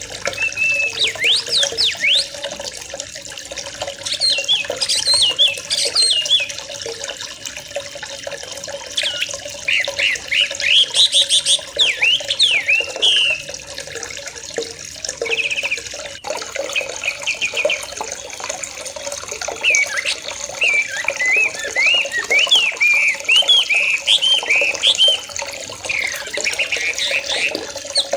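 Several young yellow-vented bulbuls (trucukan) calling and chattering together, quick bubbly notes that rise and fall in pitch, over a steady background of running water.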